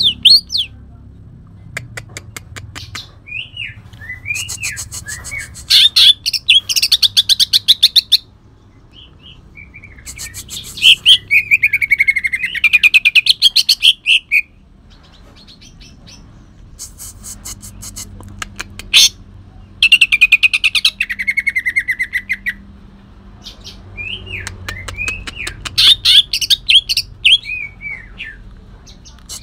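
Green leafbird (cucak ijo, Kalimantan type) singing in loud, rough bursts. Each burst is a rapid chattering trill mixed with sweeping whistled notes, and the bursts come again and again with short pauses between them. The song is filled with imitations of the long-tailed shrike (cendet).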